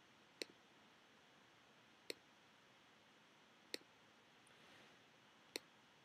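Four sharp single clicks of a computer pointer button, one every one and a half to two seconds, over the faint hiss of a quiet room.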